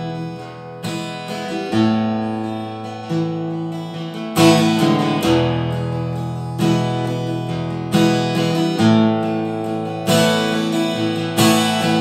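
Acoustic guitar strummed in slow chords, about one strum a second, each chord left to ring into the next, with no singing.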